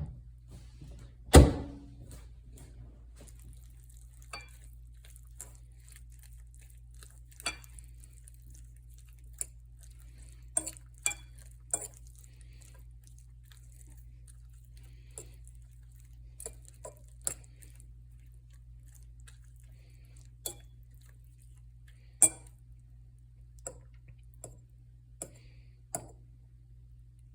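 Scattered clinks and knocks of dishes and utensils being handled, with one louder thump about a second and a half in, over a steady low hum.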